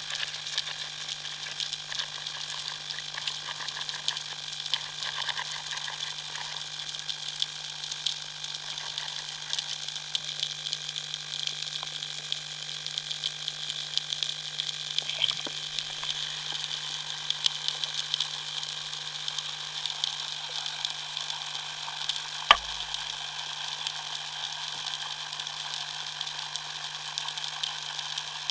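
Underwater ambience: a steady crackling hiss full of faint ticks over a constant low hum, with one sharp click about 22 seconds in that is the loudest sound, followed by a brief low thud.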